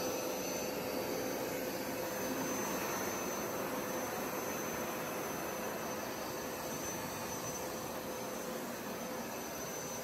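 Hoover SmartWash Pet Expert upright carpet cleaner running in dry-only mode, its suction motor whirring steadily with a faint steady whine as it sucks up the water left in the carpet.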